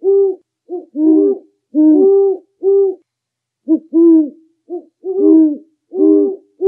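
Burrowing owl hooting: a run of low cooing hoots, mostly paired as a short note then a longer arched one, repeated about once a second with a short pause near the middle.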